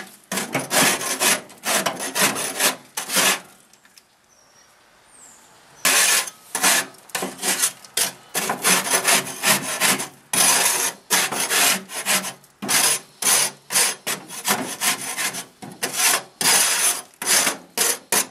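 Holland Grill dual scraper scraping baked-on black crust from the inside of the grill's drip pan toward the middle trough, in quick rasping strokes of about two a second. The strokes break off for about two seconds a few seconds in, then resume.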